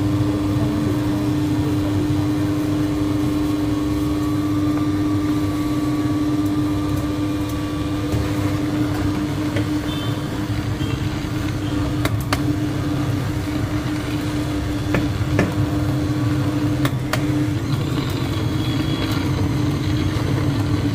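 Countertop blender motor running steadily on a thick ice-cream mix while a spoon pushes the contents down, with a few sharp knocks of the spoon against the jar partway through.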